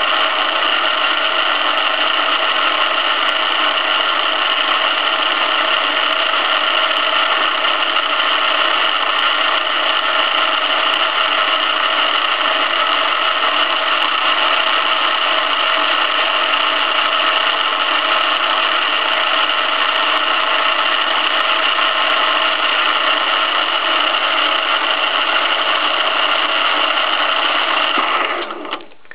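Hobby lathe running steadily at about 700 RPM, its drive whining in several steady tones, while a spinning acrylic rod is pressed hard against a fixed one to friction-weld them. The lathe stops abruptly near the end.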